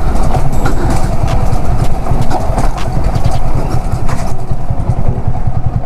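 Yamaha R15 V3's 155 cc single-cylinder engine running at low speed as the motorcycle rolls slowly along, easing off and settling as the bike comes to a stop in the last couple of seconds.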